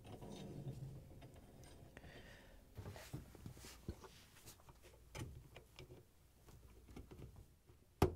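Faint handling sounds of a Bosch dishwasher's stainless-steel upper-rack rail being slid onto its plastic rollers and worked by hand: light scrapes and scattered small clicks, with a sharper click near the end.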